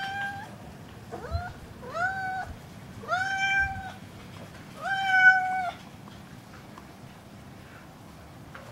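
Domestic cat meowing five times in a row, each call a pitched, drawn-out meow. The later meows are held longer at a level pitch, and the loudest comes about five seconds in.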